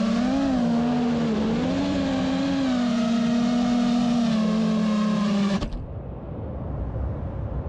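FPV freestyle quadcopter's brushless motors and props buzzing, the pitch swinging up and down with throttle. The buzz cuts off abruptly about five and a half seconds in, leaving a low rumble.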